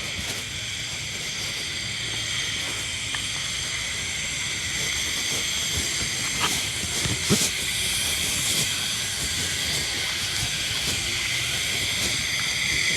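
Steady high-pitched hiss made of many even tones, with two short knocks about six and seven seconds in.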